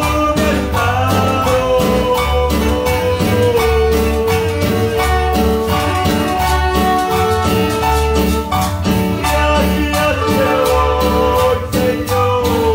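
Live band playing a Spanish-language worship chorus: electric guitar, drum kit and a metal güira scraped in a steady rhythm, with a sustained melodic line over the beat.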